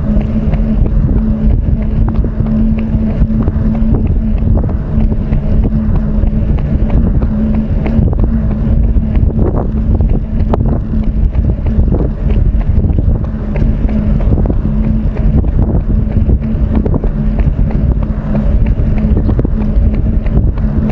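Wind buffeting a body-worn microphone, a loud, steady low rumble with a steady low hum underneath.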